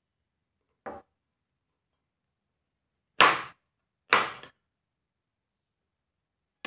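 Kitchen knife striking a cutting board: a light knock about a second in, then two loud, sharp whacks about a second apart, and another right at the end.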